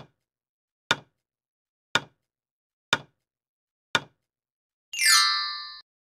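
Countdown-timer tick sound effect, five sharp ticks one second apart, followed near the end by a short bright reveal sound effect that sweeps down into a ringing tone lasting under a second.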